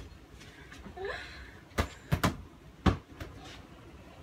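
A ball being hit and knocked about by hand in play: about half a dozen sharp taps and smacks, two in quick succession just after two seconds in. A short vocal sound comes about a second in.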